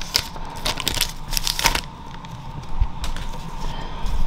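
Foil Pokémon booster-pack wrapper crinkling as it is torn open and handled by hand, in a few sharp bursts over the first two seconds, then softer rustling.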